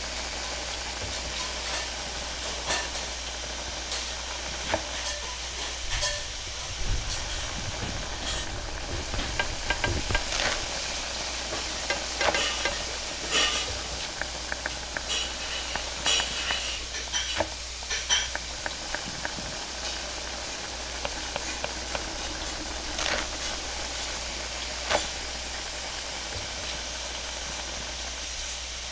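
Steady hiss of a flat-top griddle frying roti canai, with quick metal clicks and scrapes of a spatula on the griddle bunched in the middle, and a few single sharp knocks near the start and end.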